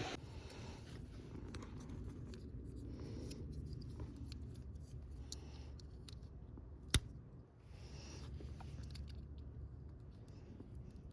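Faint handling noises, small clicks and rustles over a steady low hum, with one sharp click about seven seconds in.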